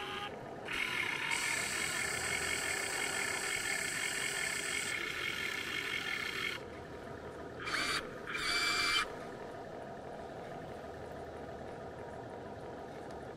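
Huina 1580 RC excavator's electric motors whining as the arm moves, in one run of about six seconds, then two short bursts about eight and nine seconds in; after that only a faint steady hiss.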